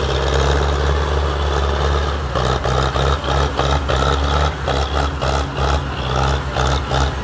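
Belarus tractor's diesel engine labouring under heavy load as it pulls a fully loaded sugarcane trailer: a steady low engine drone, with a rhythmic pulsing coming in about two and a half seconds in.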